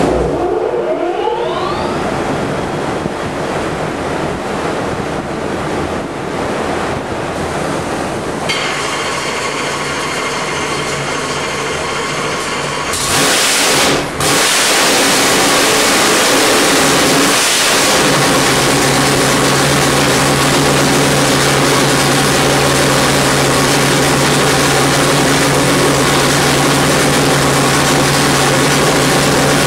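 358-cubic-inch small-block Chevrolet V8 race engine running on an engine dyno with its original race carburetor. It revs up in the first couple of seconds, grows louder about halfway through with a brief dip, then holds a steady, loud speed.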